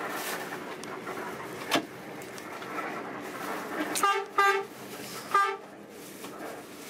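Bus horn sounding three short blasts, the last a little longer, over the steady running noise of the bus heard from inside the cabin. A single sharp knock comes a couple of seconds before the horn.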